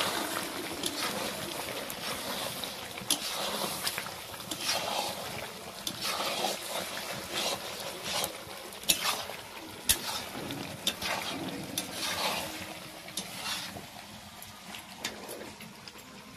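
Chicken curry sizzling in a kadai as a metal spatula stirs it, scraping and clinking against the pan in short, irregular strokes. The stirring dies away near the end, leaving the quieter sizzle.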